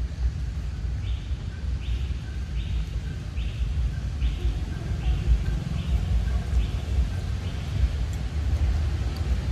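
Steady low rumble of wind buffeting the microphone outdoors. A faint, short raspy chirp repeats about every 0.7 seconds from about a second in until near the end.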